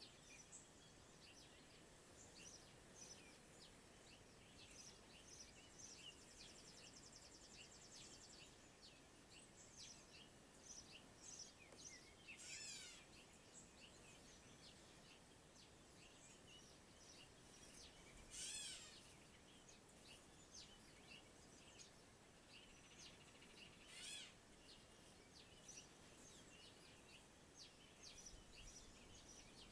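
Faint outdoor birdsong: many short high chirps, and three louder calls made of quick downward sweeps, about every six seconds.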